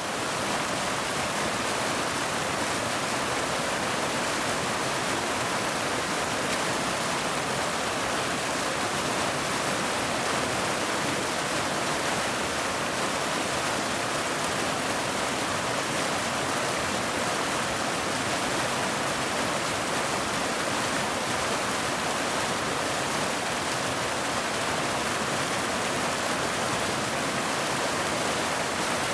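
Waterfall: a steady, unbroken rush of falling water, mostly hiss with little low rumble.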